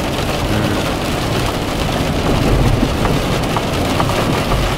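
Heavy rain falling on a car's windscreen and roof, heard from inside the car as a steady hiss with scattered drop ticks, over the low rumble of the car driving.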